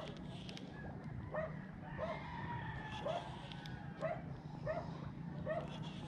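A dog barking repeatedly at a steady pace, faint, over a steady low hum.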